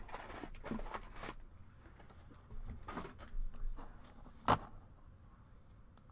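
Trading card pack wrapper crinkling and thick cards being handled, with several quick rustles at the start and softer ones later. A single sharp tap about four and a half seconds in as the card stack meets the table.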